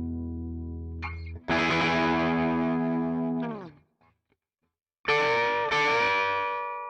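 Electric guitar played through the ZOOM G2X Four's Fender Twin Reverb amp model with the gain at 80 to 100, giving a distorted tone. A ringing chord is cut off, a new chord is struck and held about two seconds before being muted. After about a second of silence, two more chords are struck in quick succession, the second with a slight bend, and left to ring and fade.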